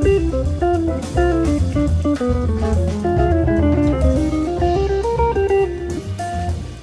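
Background music: a guitar picking out a stepping melody over a steady bass line and a drum kit.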